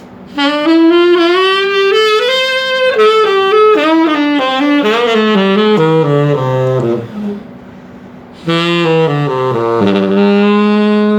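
Tenor saxophone played on a J&B Custom Jaguar mouthpiece with a 6* tip opening. It plays a phrase that climbs and then falls to the low notes, then after a short pause a second falling phrase that ends on a long held note.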